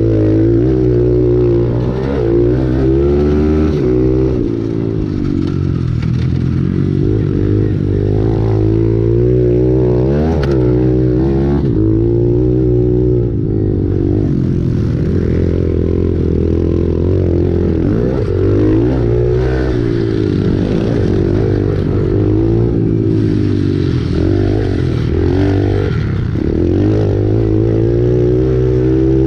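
Pit bike's small single-cylinder engine racing, its pitch rising under throttle and falling off again and again through shifts and turns, with some rattling from the bike.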